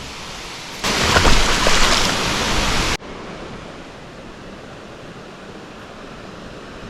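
Steady outdoor rushing noise, jumping much louder just under a second in and dropping back abruptly about two seconds later.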